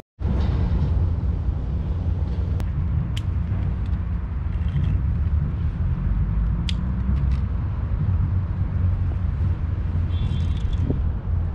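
Steady low outdoor rumble, with a few faint high chirps and ticks over it.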